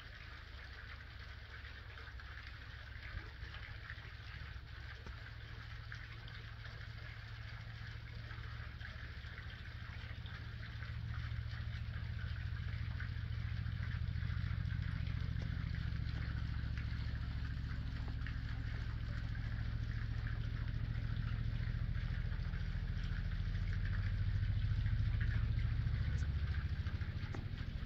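A low, steady engine-like rumble that grows louder about eleven seconds in and stays loud, over a steady high hiss.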